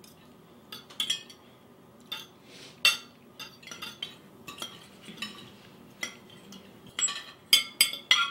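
Forks clinking against dinner plates as several people eat, in irregular clinks with brief ringing, coming thicker and louder near the end.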